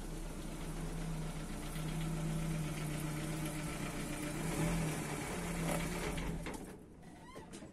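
A motor running with a steady hum, then cutting off near the end.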